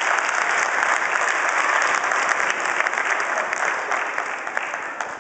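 A church congregation applauding, the clapping dying away near the end.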